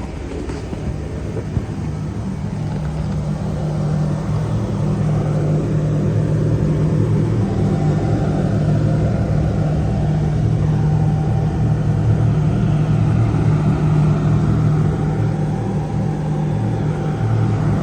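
Electric arc welding on 316 stainless steel: a steady, low buzzing hum from the arc with a hiss over it, swelling slightly a few seconds in.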